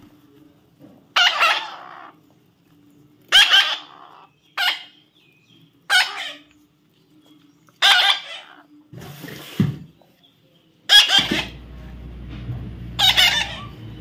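A parrot giving loud, harsh calls, about seven short ones a second or two apart. A low, steady hum comes in near the end.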